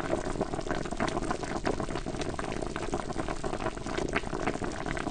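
Masala chicken curry simmering in a pan: the thick gravy bubbling, a steady hiss with many small irregular pops.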